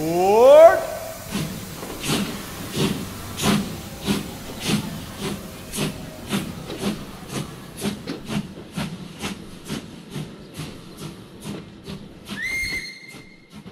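Walt Disney World monorail running: the drive's whine rises steeply in pitch at the start, then a long run of rhythmic knocks, a little under two a second, comes over a steady hiss. A short, steady high tone sounds near the end.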